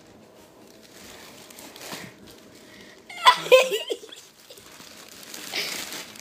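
A short burst of giggling about three seconds in, over a faint steady hum.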